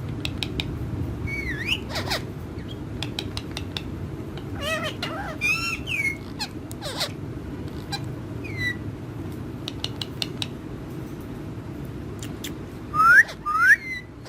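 Pet parrots chirping, whistling and clicking in scattered short calls, with two loud rising screeches about half a second apart near the end, over a steady low background hum.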